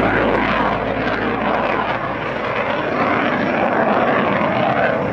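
Jet engine noise of a JF-17 Thunder's single Klimov RD-93 turbofan as the fighter climbs steeply overhead: a steady, loud rush with a slowly sweeping, phasing tone.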